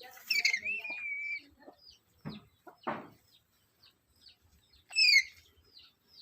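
Black-capped lory calling: a loud call held for about a second at the start, then a short shrill falling call about five seconds in, over faint quick chirps repeating throughout. Two short scratchy sounds come between the calls.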